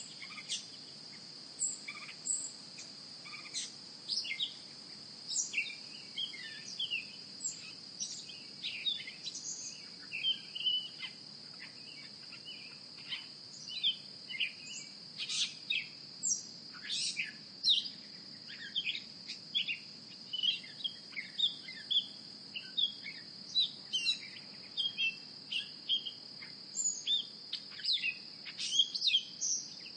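Birds chirping in many short, frequent calls over a steady high-pitched insect drone.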